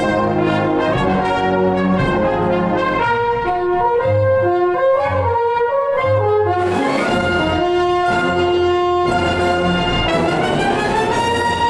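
Full wind band with brass playing loud sustained chords in the closing bars of a piece. A bright cymbal-like shimmer comes in a little past halfway, and the band gathers into a long held final chord near the end.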